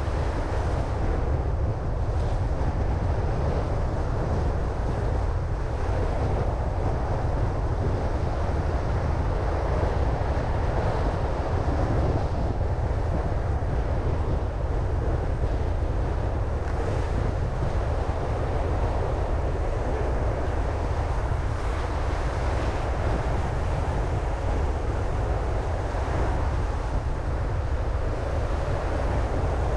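Steady wind and road noise from a car on the move, a constant deep rumble with a rushing hiss over it.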